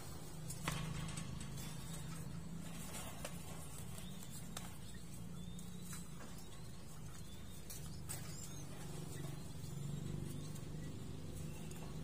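Barbary dove feeding a two-week-old zebra dove chick by regurgitation: soft rustling of feathers and wings with a few sharp clicks, the strongest under a second in, over a steady low hum.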